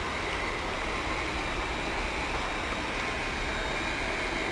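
Hot-air PVC welding machine's heat-gun blower running steadily, a constant whirring rush of air with a faint high whine.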